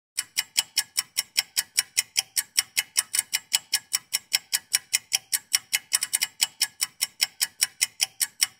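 Clock ticking, about four even ticks a second, added to mark the half hour of marinating time passing.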